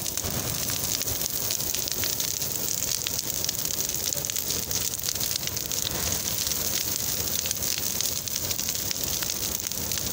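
Bonfire of dry twigs and branches burning, a steady hiss dotted with many small crackles and pops.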